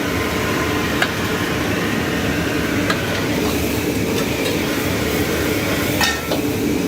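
Steady mechanical rumble with a few sharp clicks, about one, three and six seconds in.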